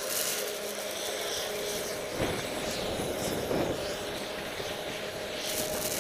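Skis sliding over snow with wind rushing over the camera microphone, a steady noisy rush with a faint steady hum underneath and a sharp knock about two seconds in.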